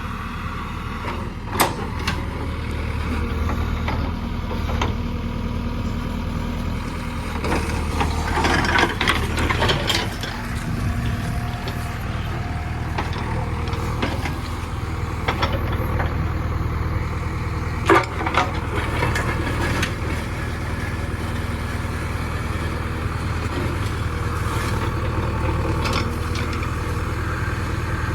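Diesel engine of an earthmoving machine running steadily while leveling ground, with a few sharp clanks along the way and a busier, louder stretch about a third of the way in.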